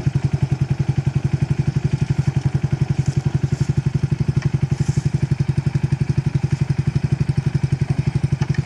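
Small off-road buggy's engine idling steadily close by, an even chugging of about ten pulses a second.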